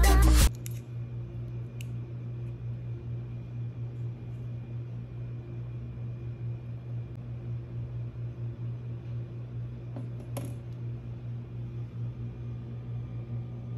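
A steady low mechanical hum of room tone, with a light click about two seconds in and another about ten seconds in.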